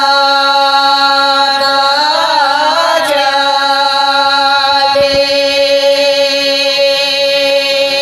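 Women singing a Bagheli folk wedding song (vivah geet) together, with a short ornamented turn about two seconds in, then one long held note.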